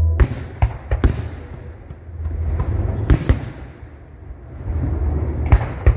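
Aerial fireworks shells bursting in sharp bangs: three in quick succession in the first second, two more about three seconds in and one near the end, over a steady low rumble.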